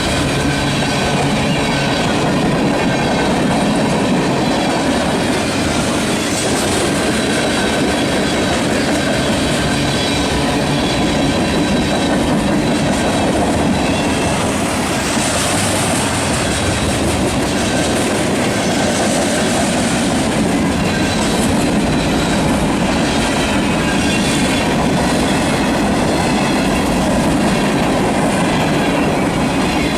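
Cars of a mixed freight train rolling past: a loud, steady noise of steel wheels on rail, with clickety-clack over the rail joints and faint, thin wheel squeal.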